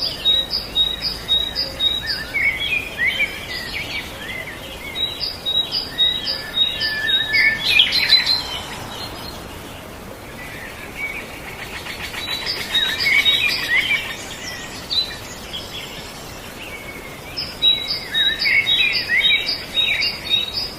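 Songbirds singing. One bird repeats the same phrase about four times, each a quick run of even, high notes ending in a warbled flourish, over a soft outdoor background.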